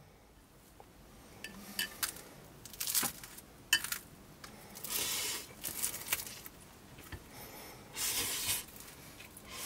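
Chopsticks clicking against a glass food container as instant noodles are lifted and stirred, then two short, noisy mouthfuls as the noodles are eaten, one around the middle and one near the end.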